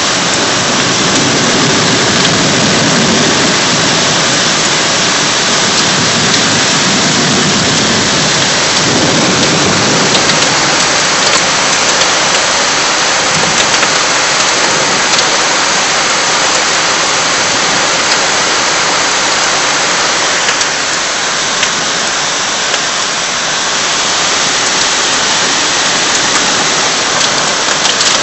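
Heavy rain pouring down in a loud, steady hiss, with deeper swells in the first ten seconds or so.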